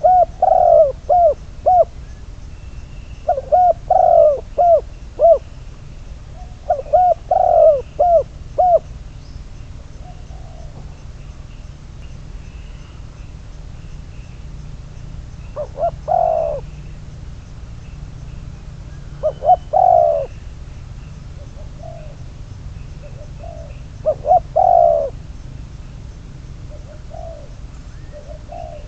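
Spotted dove cooing. It gives three quick phrases of several notes each in the first nine seconds, then shorter coos every few seconds.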